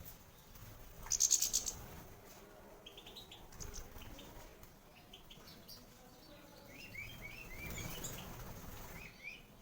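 Caged European goldfinches giving short chirping calls in quick runs. A louder burst of rapid rustling comes about a second in.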